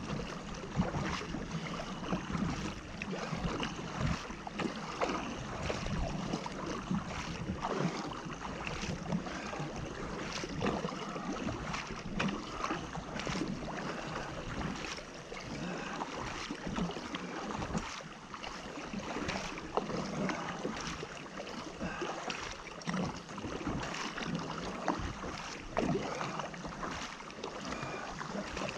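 Double-bladed kayak paddle strokes dipping and splashing, about one a second in a steady rhythm, over water rushing along a sit-on-top kayak's hull as it is paddled hard.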